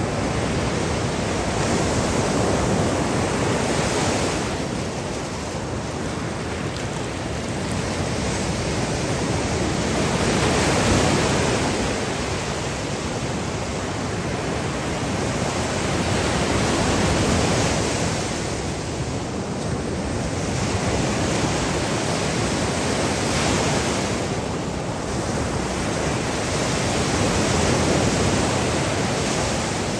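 Surf breaking and washing up a beach, a steady rush of water that swells and eases every five to seven seconds as each wave comes in.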